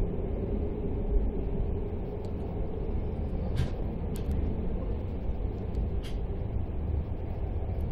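Steady low running rumble of a passenger train coach, heard from inside the compartment, with a hum that fades out about three seconds in. Three brief sharp high-pitched clicks come through in the second half.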